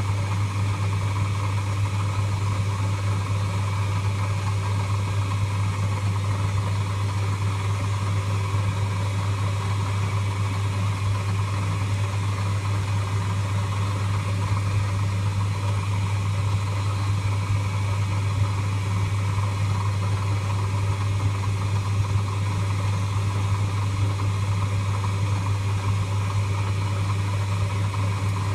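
Lathe motor running steadily with a strong low hum and a constant whirr, no change in speed.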